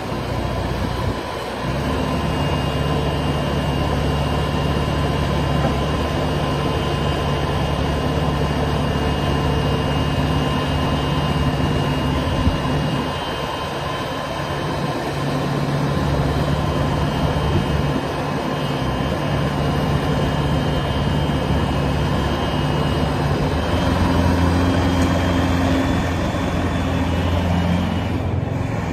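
Doosan diesel engine of a Bobcat T650 compact track loader running steadily, its engine note shifting a few times, with one short knock about twelve seconds in.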